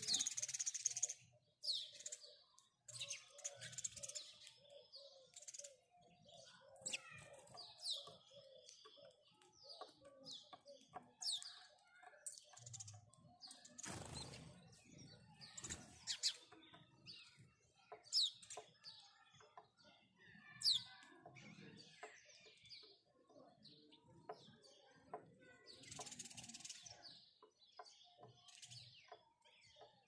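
House sparrows chirping: repeated short, high chirps with several sharp downward-sliding notes. A few brief rustling bursts come near the start, a few seconds in and near the end.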